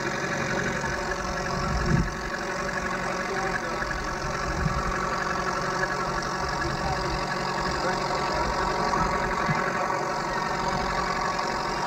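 Fishing boat's engine running steadily, with a single knock about two seconds in.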